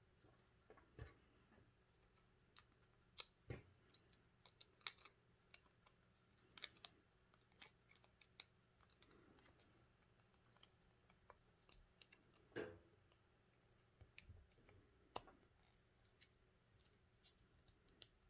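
Faint, irregular clicks and taps of hard plastic battery-pack parts and cells being handled and pressed together, as the plastic terminal cap is fitted onto a pack of 18650 lithium-ion cells. One knock about twelve seconds in is louder than the rest.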